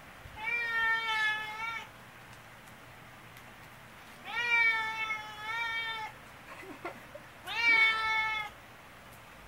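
Brown tabby cat meowing loudly: three long, drawn-out meows a few seconds apart, with a short faint chirp just before the last. These are affectionate, attention-seeking meows.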